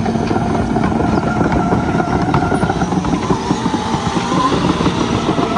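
Heavy earthmoving machine's engine running steadily with a rough low rumble, and a thin wavering squeal over it in the middle.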